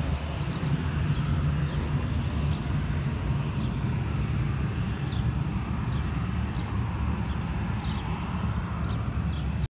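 Outdoor airport-apron ambience: a steady low rumble with an even hiss above it. A few short, high, rising chirps are scattered through it.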